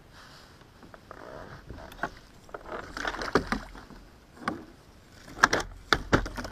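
A hooked hampala barb splashing at the surface beside a kayak while it is scooped up with a landing net. Several sharp splashes and knocks come in the second half, the loudest near the end.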